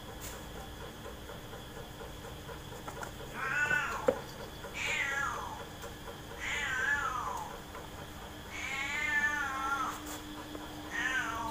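A cat meowing five times, a call every one and a half to two seconds, most calls falling in pitch and the fourth longer and wavering. A sharp click is heard about four seconds in.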